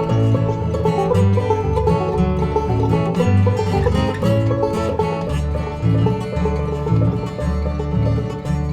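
Instrumental break of an upbeat country/bluegrass-style song: plucked strings over a steady, pulsing bass line, with no singing.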